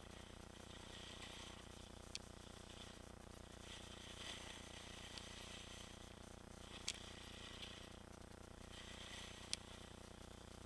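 Skis hissing faintly over packed snow in a run of turns, the hiss swelling and fading every second or two, with three sharp clicks and a steady low hum underneath.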